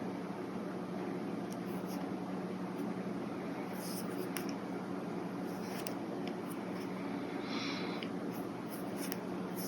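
Brush pen drawing on paper: a few faint ticks and a brief soft stroke of the tip about three-quarters of the way in, over a steady low hum.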